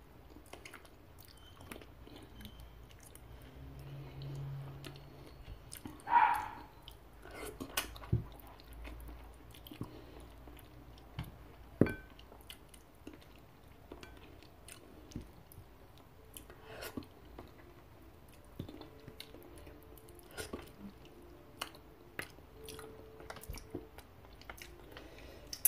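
Close-up eating of chicken feet by hand: wet chewing, gnawing and sucking, with many small mouth clicks and smacks. The loudest smack comes about six seconds in, with a few sharper clicks around eight and twelve seconds.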